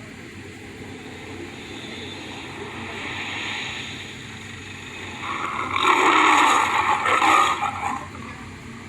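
MGM lion roar sound effect: a breathy growl swells over the first few seconds, then the lion roars loudly twice, about six and seven seconds in.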